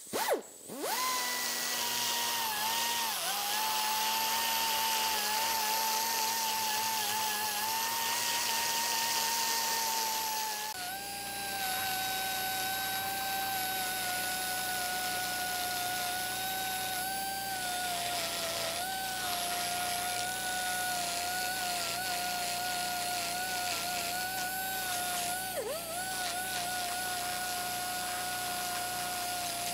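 Die grinder spinning a carbide burr into cast iron, grinding out a crack to prepare it for brazing. It spins up at the start, then runs as a steady high whine over a hiss. The pitch dips briefly when the burr bites, and it runs at a lower steady pitch from about eleven seconds in.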